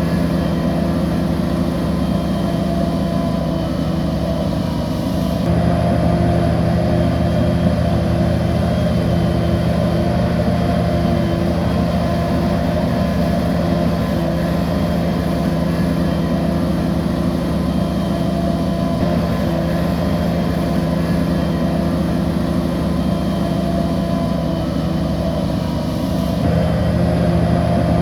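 Bulldozer's heavy diesel engine running steadily at an even pitch, with an abrupt change in its sound about five seconds in and again near the end.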